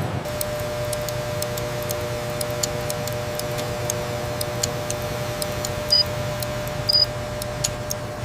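A steady machine hum with a held mid tone, overlaid by irregular light ticks and clicks, and two short high chirps about six and seven seconds in.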